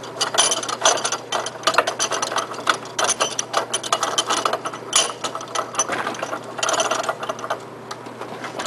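Rapid, irregular metallic clicking and rattling as a bench vise is cranked shut on a metal part, dying away shortly before the end.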